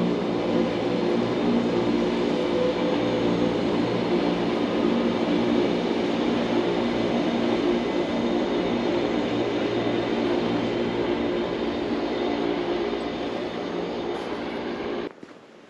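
Electric train running steadily, a continuous pitched motor hum over broad running noise, which cuts off suddenly near the end.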